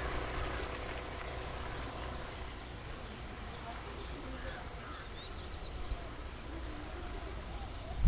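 Insects droning in a steady, unbroken high-pitched tone, with a few faint chirps about halfway through.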